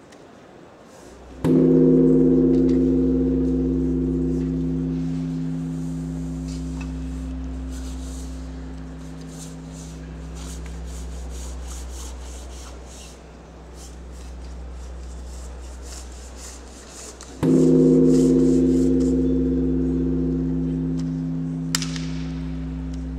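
A large gong struck twice, about sixteen seconds apart. Each stroke rings on with a deep hum and slowly dies away.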